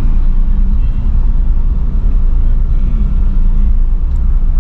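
Steady engine and road rumble inside a moving car's cabin.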